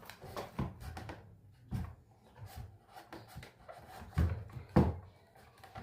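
Scattered knocks and rubbing scrapes from hands and tools working on a wooden speaker cabinet, prying at a tweeter held in with tape that won't come free. Two sharper knocks stand out, about four seconds in and again just before five.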